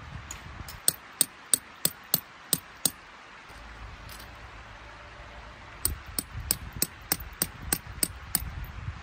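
Metal tent peg being hammered into gravel ground for an awning guy line: sharp, ringing metal-on-metal strikes about three a second. There is a run of about seven strikes, a pause of about three seconds, then about nine more.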